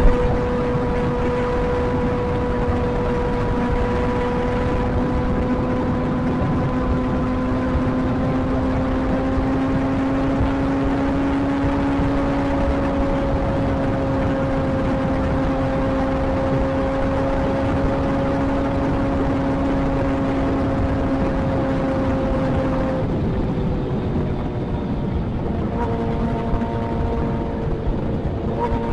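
Kawasaki ZX-25R's inline-four engine cruising at steady revs in fifth gear, a steady hum over wind rush on the microphone; about twenty-three seconds in the throttle eases off and the note drops lower.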